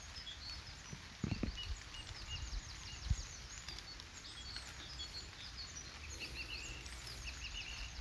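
Small birds calling with many short, high chirps over a low outdoor rumble, with a few low thumps about a second in and again about three seconds in.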